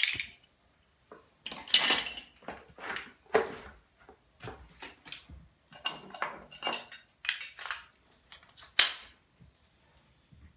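Steel wood chisels and other metal hand tools clinking and knocking against each other as they are handled and set down, a string of separate clacks with the sharpest one near the end.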